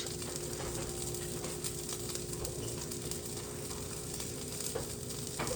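Mushrooms, cherry tomatoes and sausage frying in a pan on the stove, a steady sizzle, with a faint steady hum alongside.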